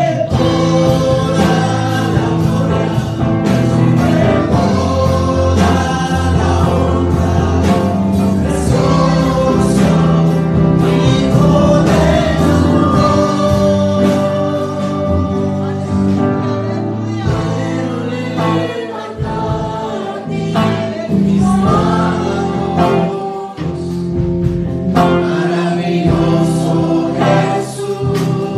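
A girl and a man singing a gospel worship song together into microphones, over music with a steady low accompaniment.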